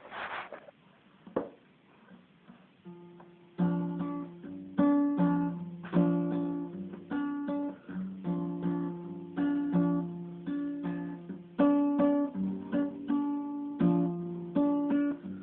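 Acoustic guitar strummed in a steady rhythm, playing a song's introduction; it starts about three and a half seconds in, after a few brief soft noises.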